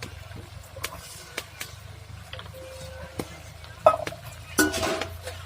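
Cooking utensils knocking and clinking against a pot, with a sharp clank about four seconds in, over a steady low hum.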